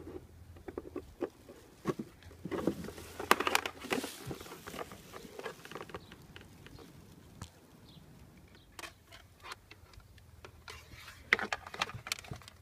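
Handling noise from hard plastic dashboard and glovebox trim being turned over and fitted: irregular clicks and knocks with rustling of a plastic sheet. The sound is busiest a few seconds in and again near the end.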